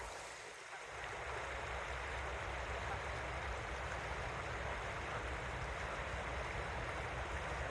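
Steady rushing noise with a low rumble underneath, even throughout.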